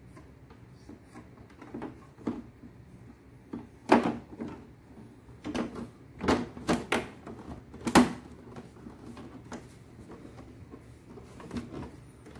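Plastic front grille panel of a Sharp FP-F30Y air purifier being fitted back on and pressed shut: a series of plastic knocks and clicks, the loudest about four seconds in and again around six to eight seconds in.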